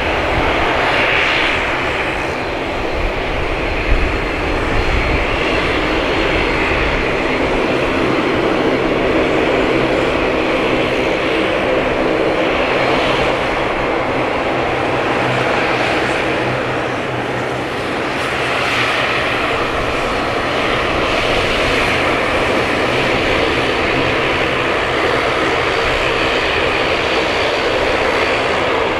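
Bombardier DHC8-Q400 turboprop airliner's two engines and propellers at takeoff power during its takeoff roll: a steady drone with propeller tones.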